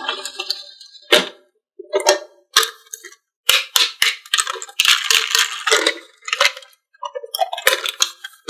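Marbles clattering down a wooden marble run: irregular clicks and knocks as they strike the track pieces, with short bursts of rattling and brief pauses between them.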